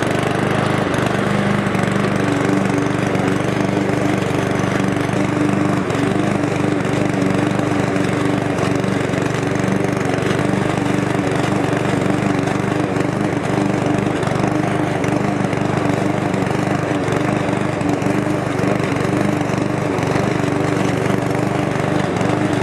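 Cobra MX460 SPC petrol rotary lawn mower running steadily while cutting grass in mulching mode, its engine note holding an even pitch.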